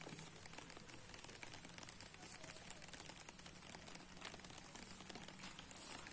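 Light rain falling on still water and nearby gear: many small, irregular ticks and patters of drops over a soft hiss, with a faint low hum underneath.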